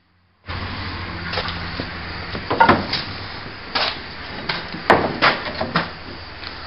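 Wooden bed side boards of a 1929 Model A Ford pickup knocking and clattering as they are worked loose and pulled out: a string of sharp wooden knocks, the loudest about two and a half and five seconds in, over a steady low hum.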